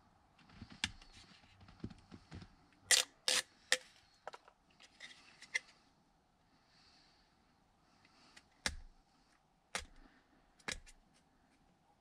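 Hands handling a plastic ProClip dash mount and peeling the backing liner off its adhesive tape: scattered sharp plastic clicks, the loudest a close pair about three seconds in, with soft crinkling between.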